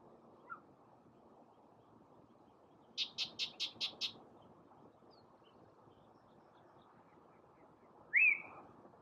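Male yellow-breasted chat singing its territorial song: a rapid run of six short, sharp notes about three seconds in, then a single loud upslurred whistle near the end.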